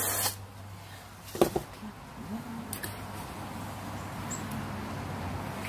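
Garden hose spraying water into a tub of wet concrete mix, cutting off a fraction of a second in. A sharp double knock follows about a second and a half in, then faint sloshing as a gloved hand works fabric in the wet concrete.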